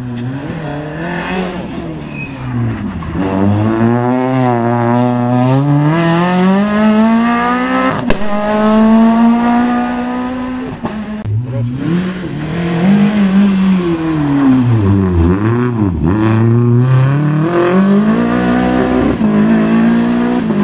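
Rally car engine revving hard, its pitch climbing through the gears and dropping sharply at each shift or lift-off, several times over.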